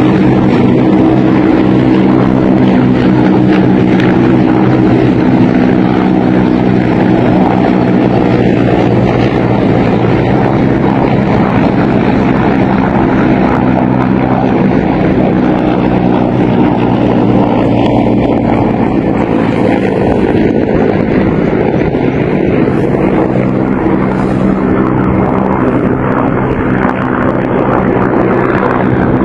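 Several helicopters flying low overhead, their rotors and engines making a loud, steady drone.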